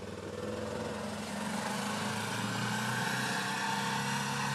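Arctic Cat vehicle's engine running steadily, growing louder over the first couple of seconds and then holding level.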